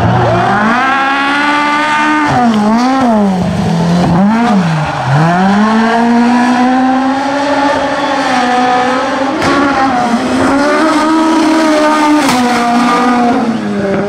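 Fiat 131 rally car's engine revving hard under load, its pitch falling and rising sharply twice as the throttle is lifted and reapplied, then climbing steadily as the car pulls away, with a couple of brief cracks later on.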